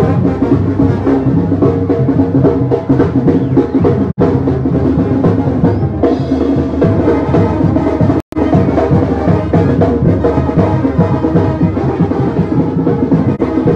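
Marching brass band playing a lively tune: a sousaphone, trumpets and a baritone horn over a bass drum beat. The audio cuts out for a split second twice.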